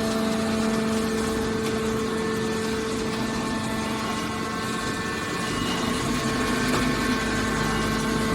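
Hydraulic baler's motor and pump running, a steady mechanical hum.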